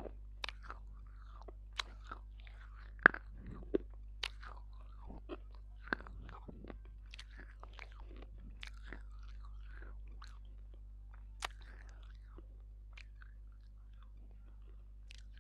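Close-miked chewing and crunching from a lapel microphone held at the lips, with sharp, crisp cracks that are densest in the first half and thin out later into softer mouth sounds.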